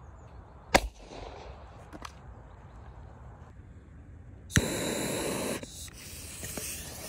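A firecracker goes off with one sharp bang under a second in. Later a sharp click is followed by about a second of loud hissing as the next firecracker's fuse is lit with a lighter, then a fainter fizzing.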